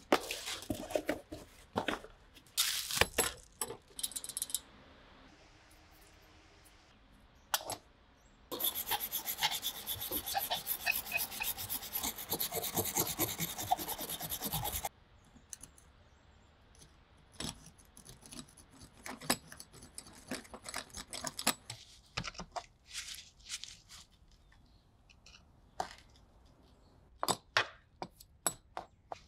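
Workshop handling of a worn, rusty hoof knife on a wooden bench. A cardboard box lands with a few knocks at the start. About eight seconds in comes roughly six seconds of dense scraping and rubbing of metal against wood, and after that scattered taps and clicks as the knife is handled.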